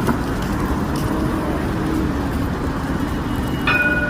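Steady street traffic rumble, then near the end the Cincinnati Bell Connector streetcar's horn starts sounding, a steady chord of several notes.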